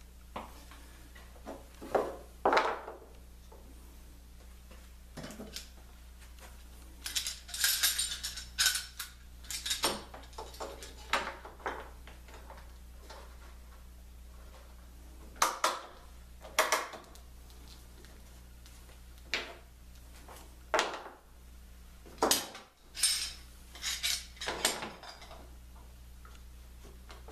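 Metal bar clamps clattering and clicking against each other and the plywood as they are set and tightened, in irregular bunches of knocks with quiet gaps between. A steady low hum runs underneath.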